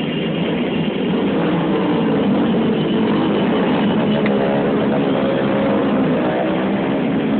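A group of motorcycles riding past, their engines running together in a dense steady drone, with one engine's pitch rising and falling from about three seconds in.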